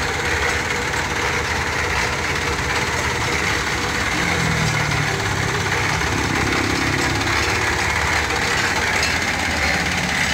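Drum concrete mixer running steadily.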